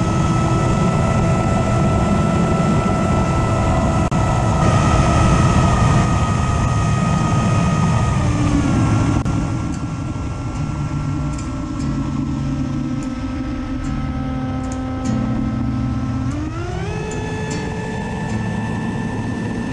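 Electric motor and propeller of an FPV flying wing whining steadily over rushing air. The pitch drops about halfway through as the throttle eases, and climbs again near the end.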